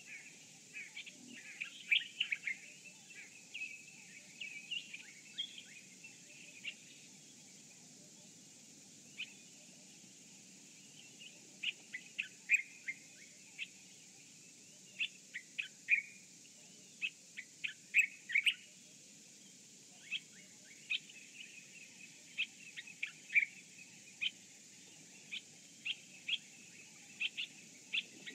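Wild birds chirping: many short, high calls in quick clusters, with a lull of a few seconds about a quarter of the way in.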